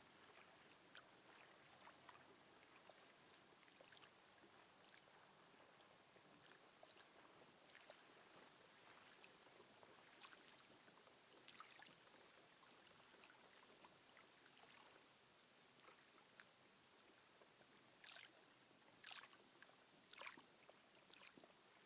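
Faint lake water lapping gently in small, irregular splashes, with three slightly louder splashes near the end.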